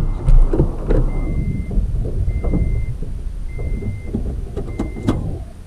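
Toyota FJ Cruiser's reversing beeper, a steady high beep about half a second long repeating roughly every 1.2 seconds, five times: the truck is in reverse during a turnaround. Under it, the low rumble of the truck crawling over a rocky dirt track, with a few knocks.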